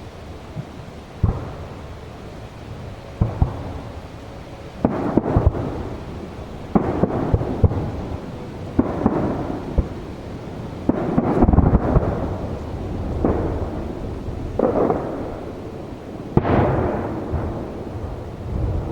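Aerial firework shells bursting one after another, about a dozen sharp bangs. Each bang is followed by a rolling rumble, and the rumbles run into each other in the busier middle stretch.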